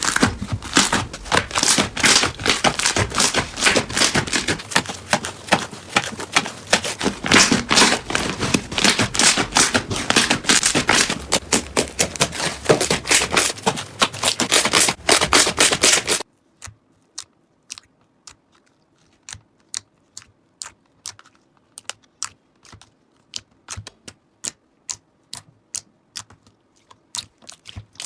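Slime being squished and pressed by hand, a dense run of crackling and popping. About sixteen seconds in it cuts to a quieter clip of separate sharp clicks, roughly two or three a second.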